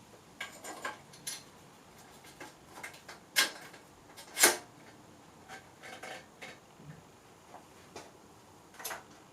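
Bicycle stem being fitted over the headset spacers onto the fork steerer tube: scattered metallic clicks and clinks of the parts, with the sharpest knock about four and a half seconds in.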